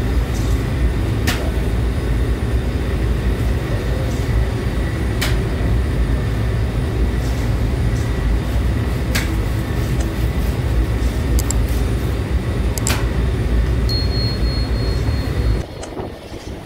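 Steady low rumble of a taftoon bread machine's rotating oven running, with a sharp click about every four seconds. The rumble cuts off suddenly near the end.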